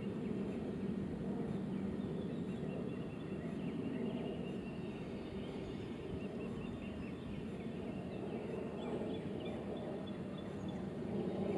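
Birds calling here and there over a steady low outdoor rumble.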